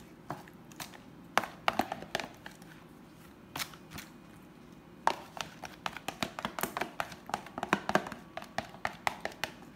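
Serving spoon tapping and scraping against a plastic tub while scooping out tomato sauce: sharp clicks, a few at first, then a quicker run from about halfway.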